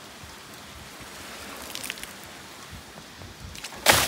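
Light rain hissing steadily, then near the end a bowlful of water thrown hard against the side of a Mahindra Bolero SUV: one loud splash that dies away quickly.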